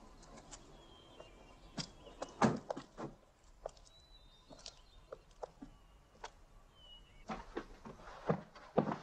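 Scattered light knocks and footsteps with a few brief bird chirps; from about seven seconds in, a quick run of thumps and clatter as a man stumbles through a curtained doorway.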